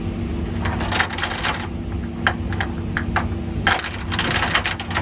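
Steel load-securement chain clinking and rattling as it is handled on a flatbed trailer deck: a burst of rattling about a second in, a few single clinks, then a longer run of rattling near the end. A steady low engine hum runs underneath.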